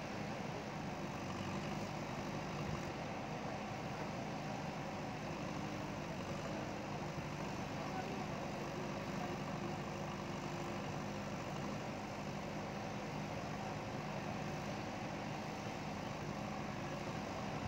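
JCB ecoXcellence backhoe loader's diesel engine running steadily.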